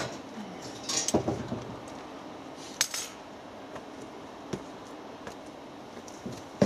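A few scattered metallic clinks and knocks as the steel parts of a welded gate frame are handled, with a loud knock at the very end.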